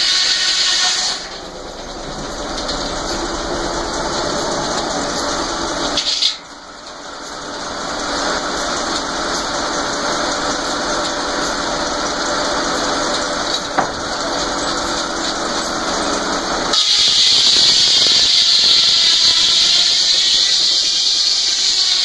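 Frick circular sawmill's large blade cutting through a log with a loud high hissing whine, which stops about a second in. The blade then spins free with a steady ringing hum, with a short loud burst about six seconds in, and bites into the log again about 17 seconds in.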